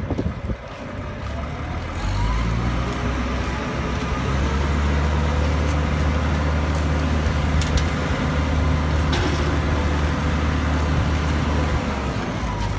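Truck-mounted crane's diesel engine revving up and running steadily under load while it hoists its hook and wires, easing off near the end. A few knocks come right at the start.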